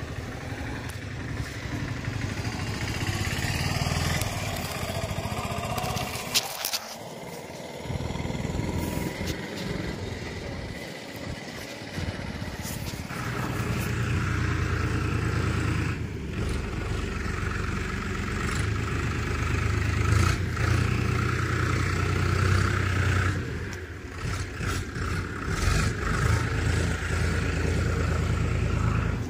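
A vehicle engine running steadily, fading briefly a couple of times in the first half and growing stronger about halfway through.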